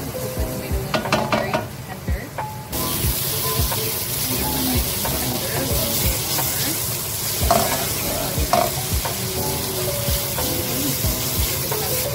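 Diced tomatoes, bell peppers and spices sizzling in a nonstick pan while a wooden spatula stirs and mashes them against the pan. The tomatoes are cooked soft enough to smash. The sizzle turns suddenly louder about three seconds in, and light background music plays under it.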